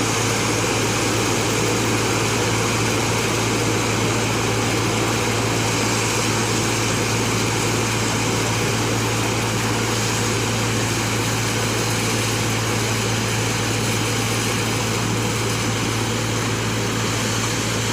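Mini combine harvester running steadily, its engine hum and machinery noise holding a constant pitch and level.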